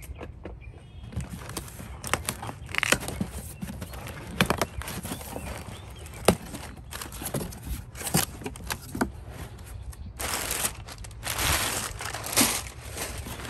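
A cardboard box being opened by hand: scattered crackles and snaps of taped cardboard flaps, then, about ten seconds in, a dense rustle of brown kraft packing paper being crumpled and pulled out.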